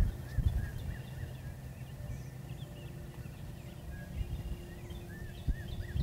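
Turkey yelps: a quick run of rising-and-falling notes, about five a second, right at the start and again near the end, over a low rumble with a few thumps. Small birds chirp faintly higher up.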